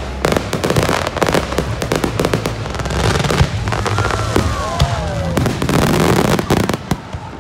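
Fireworks display: a dense, continuous run of bangs and crackling as aerial shells burst overhead.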